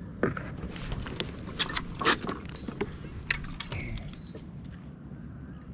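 Metal fishing tackle clinking and rattling as it is handled: a quick string of sharp clicks and jingles over the first few seconds that thins out toward the end.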